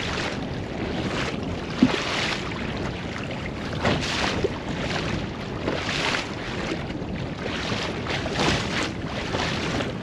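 Choppy waves splashing and slapping against a fishing kayak's hull in repeated swashes, over steady wind buffeting the microphone. A single sharp knock sounds about two seconds in.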